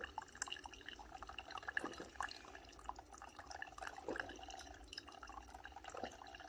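Salter one-cup filter coffee maker brewing: hot water spluttering and dripping into the cup as a dense, irregular patter of small drips and pops.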